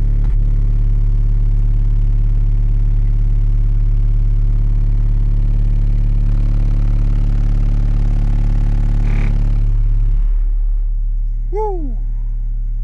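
Sundown Audio X-8 v.3 8-inch subwoofer in a rear-loaded horn enclosure playing a steady 36 Hz test tone at very high level, with a buzzy overtone, during an SPL test. The meter reads about 139.4 dB. The tone eases slightly about ten seconds in.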